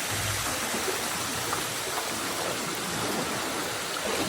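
Steady rush of flowing water from an underground river inside a cave.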